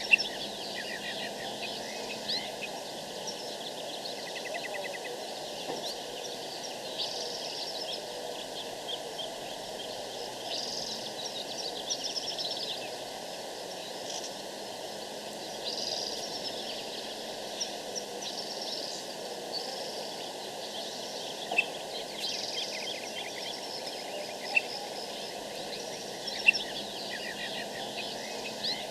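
Birds chirping and trilling over a steady background hiss, with a few sharp ticks standing out, one near the start and several in the last third.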